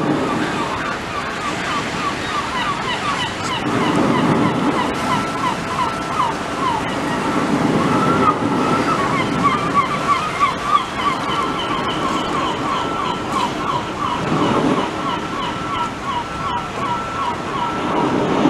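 Water sloshing and lapping in a sea lion pool, in swells every few seconds, under a fast run of short repeated chirps. A steady high tone joins about six seconds in.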